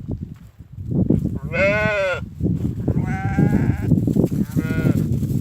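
Goats bleating three times: a long arched bleat that rises and falls, then two shorter ones, over a steady low rumbling noise.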